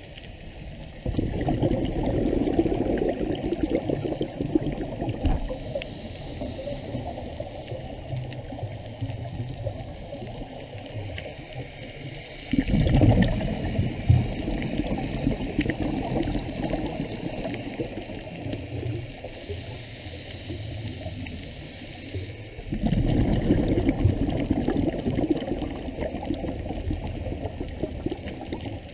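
Scuba diver's regulator breathing heard underwater through a camera housing: three surges of exhaled bubbles rumbling, about ten seconds apart, with a fainter high hiss between them.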